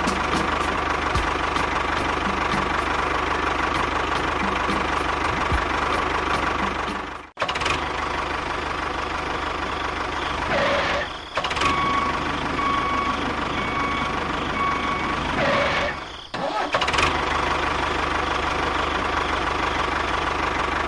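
A motor running steadily, cutting off abruptly and resuming twice, about seven and sixteen seconds in.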